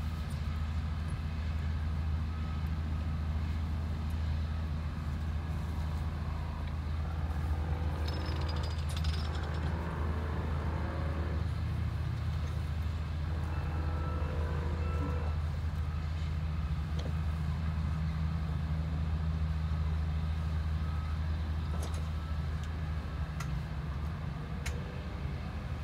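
Tractor engine idling steadily with a low hum, with a few light metallic knocks as the graveside lowering frame is taken apart.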